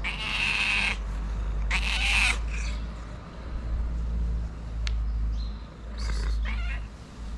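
Calico cat meowing: two loud, drawn-out meows in the first couple of seconds, then shorter, quieter meows about six seconds in.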